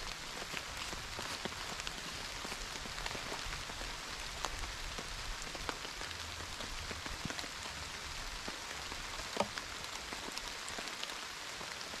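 Steady rain falling, a soft even patter dotted with the ticks of single drops, and one sharper drop tap about three quarters of the way through.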